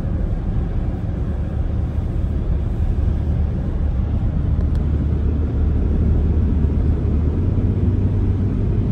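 Steady road noise heard inside a car cabin at highway speed on a wet road: a low rumble of tyres and engine with a hum underneath.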